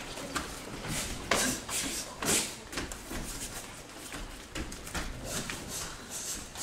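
Martial artists' hand strikes and uniform fabric snapping during partner self-defence techniques: a series of short, sharp slaps, the loudest a little over two seconds in.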